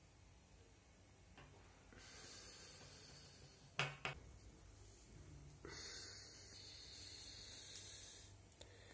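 Near silence: faint room hiss, broken by two soft knocks about four seconds in.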